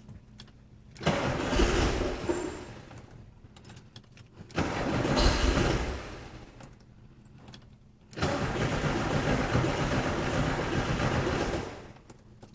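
Starter cranking a VW air-cooled flat-four engine three times, the third crank the longest, without the engine catching: its newly fitted 40 IDF carburettors are still dry of fuel.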